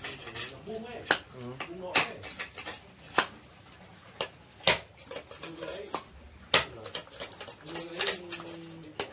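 Machete chopping and splitting bamboo into thin kindling strips: a series of sharp knocks at irregular intervals, about one every second or less.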